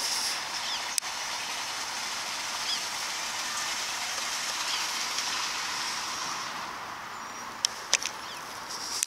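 Water running out of a brick culvert into a narrow ditch, a steady hiss that fades about seven seconds in as the camera moves away, with a few sharp clicks near the end.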